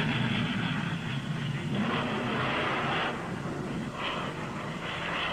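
Skycycle X-2 steam-powered rocket's noisy roar as it climbs away after launch, heard through thin archival broadcast audio. The rush eases and turns patchy after about three seconds.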